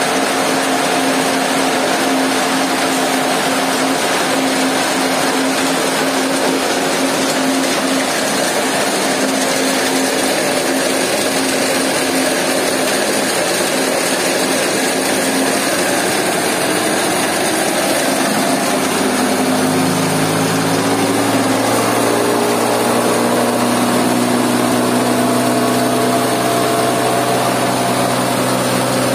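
Small hammer-mill stone crusher, driven by a three-phase electric motor, running steadily with a dense, loud mechanical noise and a hum. About 19 seconds in the hum changes and a deeper tone joins it.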